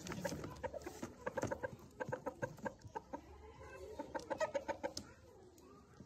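Aseel chickens clucking in quick runs of short calls, with a busier stretch about a second in and another near the end.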